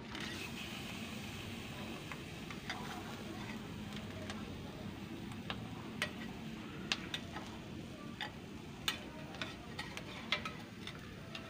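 Longfin trevally grilling on a wire grill over hot charcoal: a steady sizzle with scattered sharp crackles and pops, which come more often in the second half.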